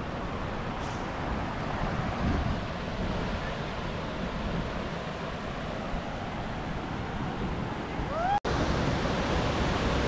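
River water rushing over rocks toward the lip of a waterfall: a steady rushing noise, heaviest in the low end, with some wind on the microphone. A brief rising whistle-like call sounds about eight seconds in, just before the sound cuts out for an instant at an edit.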